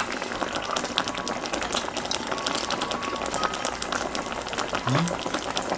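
Kimchi stew boiling in a shallow pan on a portable gas stove: a dense, fast crackle of small bubbling pops over a light hiss.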